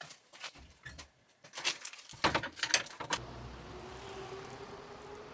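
Sharp clicks and knocks from a basement storage-room door and its lock, loudest about two seconds in. From about three seconds in, a steady street hum.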